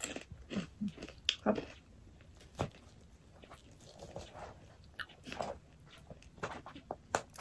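Close-up chewing and mouth smacking while eating, mixed with irregular clicks and scrapes of black plastic cutlery against a plastic takeout tray as food is cut.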